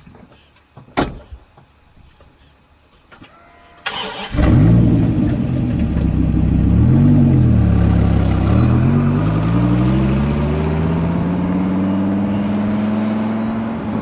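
A few clicks and a knock, then a Dodge Viper's V10 engine starts about four seconds in and runs loud. Its pitch rises and dips once, then climbs steadily as the car accelerates away.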